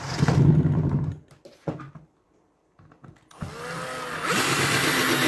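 Electric drill driving thick screws into wood: a short run of about a second, a pause, then a longer run starting about three and a half seconds in.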